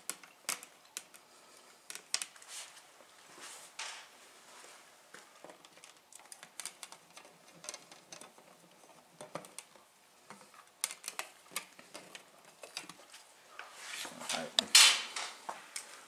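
Small flathead screwdriver backing out the screws of a plastic switch cover plate: scattered light metallic clicks and scrapes, with a louder rustle and clatter near the end as the plate is taken off the wall.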